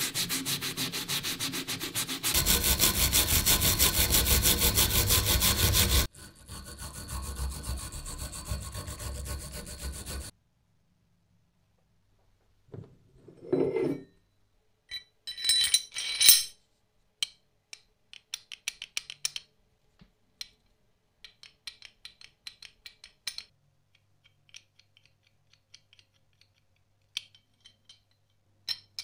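Fast, steady scrubbing strokes on the wet cast-iron body of an antique adjustable wrench, louder after about two seconds, softer after about six, stopping about ten seconds in. After a pause, loose metal parts clink and clatter on a wooden table, then light, scattered clicks as the movable jaw is slid and rocked in the body's T-slot, loose from the play in its guide.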